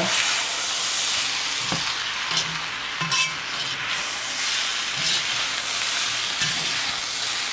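Shrimp fried rice sizzling against the bottom of a hot cast iron wok while a wooden spatula stirs and turns it, with occasional scrapes of the spatula on the pan.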